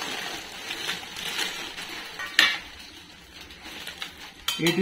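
Thin 22-gauge stainless steel plates being handled, clinking and clattering against one another, with one sharper clank about two and a half seconds in.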